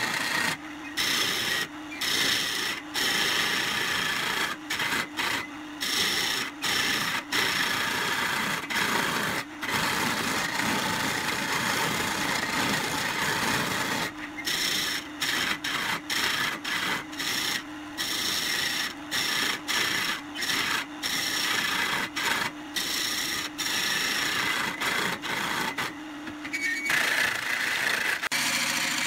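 A hand-held turning chisel cutting into pine spinning on a wood lathe, a rough scraping of steel on wood over the hum of the lathe. The cut keeps breaking off for a moment, many times, as the tool is lifted and moved along the work.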